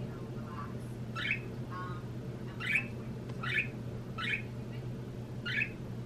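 Budgerigar chirping: about five short, sharp calls, a second or so apart, with a couple of softer, lower notes near the start.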